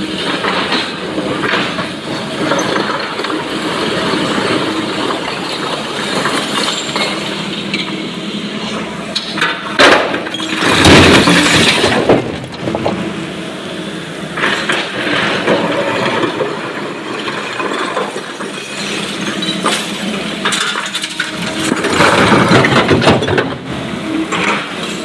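SANY excavator's diesel engine running steadily under hydraulic load, with a loud crash and clatter of broken stone dropping from the bucket into the tipper truck's body about ten seconds in, lasting some two seconds. Rock rattles and scrapes again near the end.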